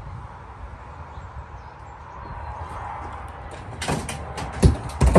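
Steady low background rumble, then about four seconds in a few sharp knocks and clunks, the last one the loudest.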